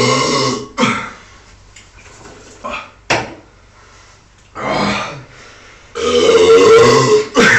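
A man belching loudly three times: a long burp right at the start, a shorter one about five seconds in, and a long, loud one about six seconds in.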